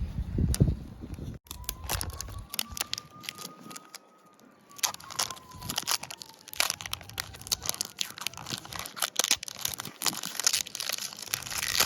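Plastic wrapping on a Mini Brands capsule crinkling and tearing as it is peeled open by hand, in quick irregular crackles with a brief lull about four seconds in.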